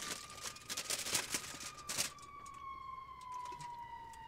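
A distant siren holding one long tone that slowly falls in pitch. Several sharp clicks and crinkles sound over it in the first two seconds.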